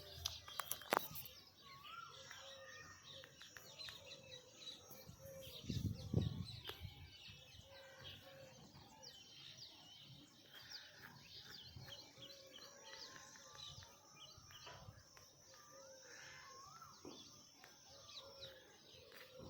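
Birds chirping and calling outdoors, many short chirps and little rising and falling whistles overlapping against a faint steady hiss. A brief low rumble comes about six seconds in.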